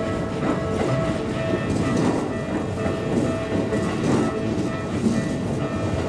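Keikyu 2100-series electric train rolling slowly over the level crossing, with a low rumble and irregular wheel clacks over the rail joints. A level-crossing warning bell keeps up a steady ringing tone.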